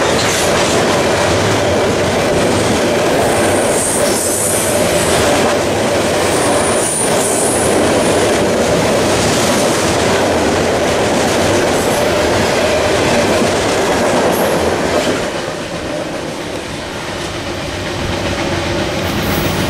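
Freight train of open hopper cars rolling past, a steady loud rumble with the clatter of wheels on rail. The noise drops off about fifteen seconds in as the last car clears.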